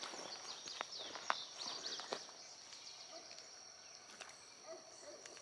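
Quiet pond-side ambience: a steady high insect drone, with faint bird chirps in the first couple of seconds and a few scattered faint clicks.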